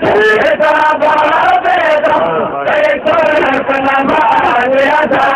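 Men's voices chanting a noha, a Shia mourning lament, sung without a break in a rising and falling melodic line.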